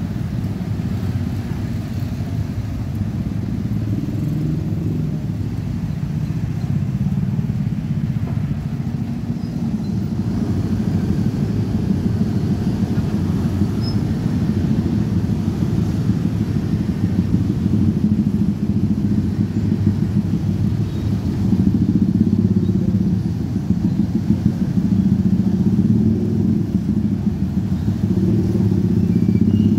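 Many motorcycle engines idling together in a queue of traffic, a steady low running that grows a little louder in the second half.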